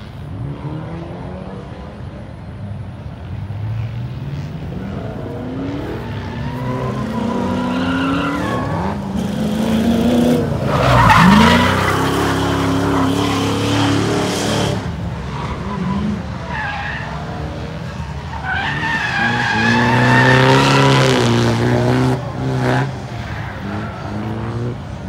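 Drift cars sliding past on track, engines revving up and down as their tyres squeal. The two loudest passes come about ten seconds in and about twenty seconds in.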